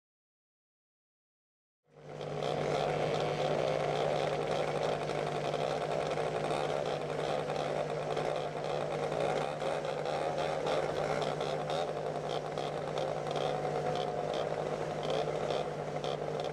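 Digital silence for about two seconds, then several vintage race snowmobiles lined up idling together: a steady two-stroke engine hum that neither rises nor falls.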